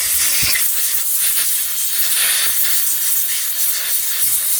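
Steady, loud hiss of a pressurized jet blasting into a 6003 ball bearing to flush out its old, rusty grease.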